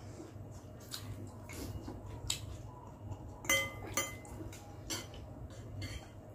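Metal spoon and fork clinking and scraping against a glass bowl, a handful of separate clinks with the loudest about three and a half seconds in, ringing briefly. A steady low hum runs underneath.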